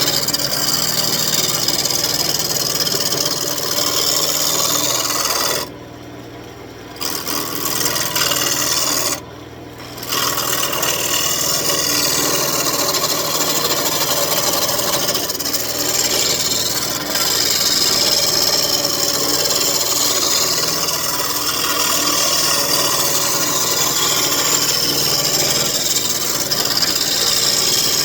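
Turning tool cutting a spinning elm blank on a wood lathe, a steady scraping hiss with the lathe motor's low hum underneath, while roughing the blank to round. The cut drops out twice briefly, about six and nine seconds in.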